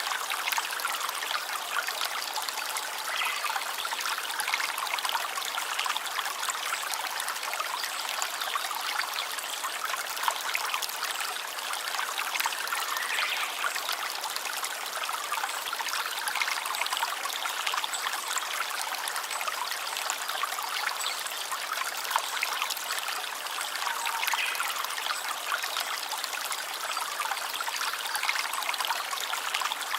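Running water from a small stream, trickling and babbling steadily, with a bright, crackly splashing.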